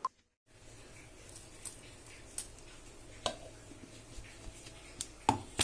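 A few scattered small clicks and knocks as a hand handles the plastic lid of a mixer-grinder jar, over a faint low hum. The sharpest knocks come near the end.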